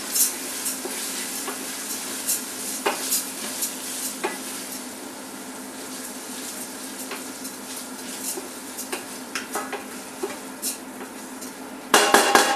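Risotto rice sizzling in hot oil in the EveryCook cooking machine's pot, heated to about 120 °C, with scattered crackles and pops over a steady low hum. Near the end comes a brief burst of clatter.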